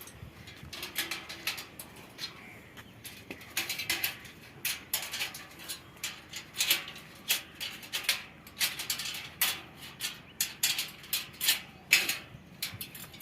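Irregular series of short, sharp, high-pitched chirps and squeaks, several a second, like animal or bird calls.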